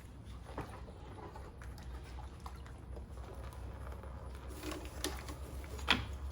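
Scattered light clicks and taps of tools and parts being handled during engine work, with one sharper click near the end, over a low steady hum.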